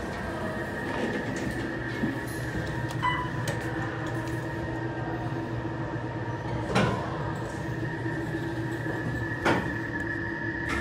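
Otis hydraulic elevator running with a steady mechanical hum and its sliding doors working. There are a few light clicks, a short ringing tone about three seconds in, and two sharp knocks about seven and nine and a half seconds in.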